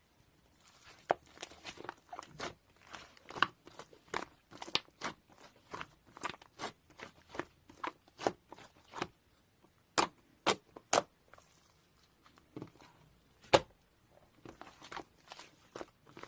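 Irregular close-up clicks, crackles and crinkles of small objects being handled, with a few sharper snaps.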